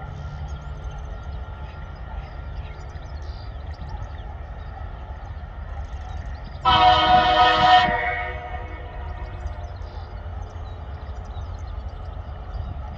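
TasRail TR-class diesel locomotives working a freight train up a grade, a low steady rumble. About halfway through, the lead locomotive sounds its horn once for a little over a second, a warning for the level crossing, and the sound rings on briefly after it stops.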